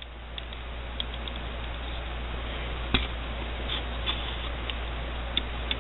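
Scattered light clicks and taps of small plastic model-kit parts being handled, one sharper click about halfway through, over a steady hiss and low hum.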